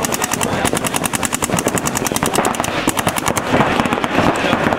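Paintball markers firing in rapid strings, many sharp pops a second, thinning out about three and a half seconds in.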